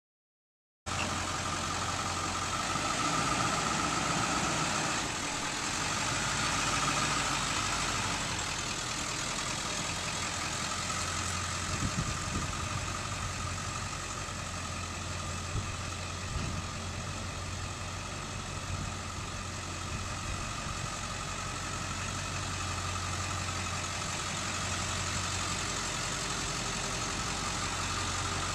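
2002 Ford F-250 Super Duty's 7.3-litre V8 turbo diesel idling steadily, with a faint high whine over the low engine note. It comes in about a second in.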